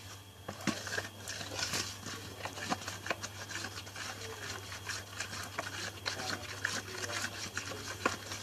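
Slime mixture of glue, liquid soap and baking powder being stirred in a container: a quick, irregular run of scraping and clicking as the stirrer rubs against the container.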